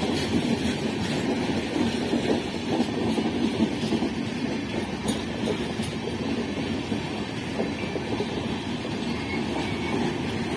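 Indian Railways passenger coaches running past, a steady rumble of steel wheels on the rails.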